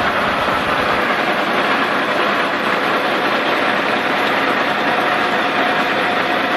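Star military truck's diesel engine running steadily, with a low throbbing in the first second; a faint steady whine joins about five seconds in.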